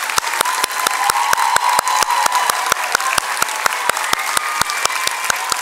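Audience applauding steadily. One nearby pair of hands stands out above the rest, clapping a sharp, even beat of about five claps a second.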